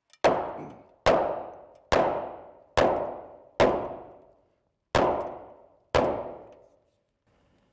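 Seven hammer blows on a timber beam, about one a second with a short pause before the sixth, each ringing out briefly as the beam is knocked into place.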